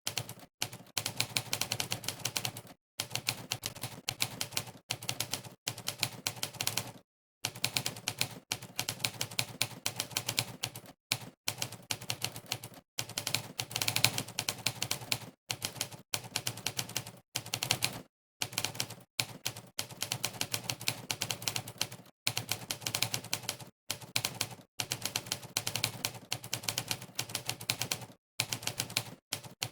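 Monkeytype's typewriter keystroke sound effect: a rapid stream of typewriter-style key clacks, one per key pressed during fast typing. The clacks come in runs a few seconds long, broken by short gaps of dead silence.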